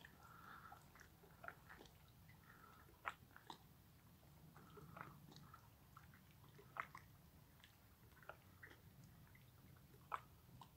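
Near silence, with a dozen or so faint scattered clicks and ticks over a low, faint hum.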